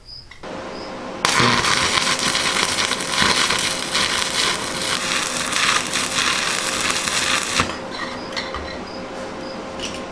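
Electric arc welding on steel: the arc strikes about a second in and crackles steadily for about six seconds, then stops.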